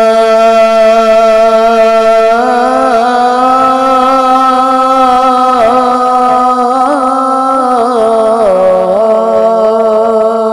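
A man's voice holding one long sung note in a Punjabi Sufi kalam, with small turns and bends in pitch. It is the drawn-out opening of the kalam.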